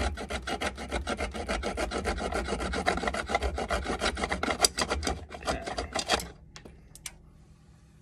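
Small hacksaw cutting through the inner conductor of LDF4-50 coax cable, working against a measuring guide so the conductor is cut square at the right height. It makes quick back-and-forth strokes, several a second, that stop about six seconds in once the conductor is cut through.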